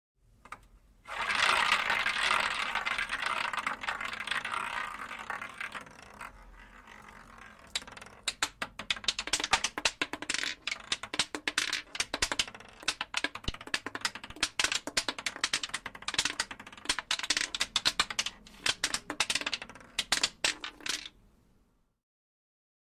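Roulette ball rolling around a spinning roulette wheel, a steady rattling whir that fades after about five seconds, then a long run of irregular clicks and clatters as the ball bounces among the pockets, dying away a second or two before the end.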